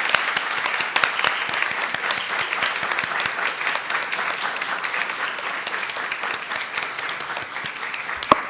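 Audience and panel applauding: dense, steady clapping that keeps an even level and only starts to die away at the very end.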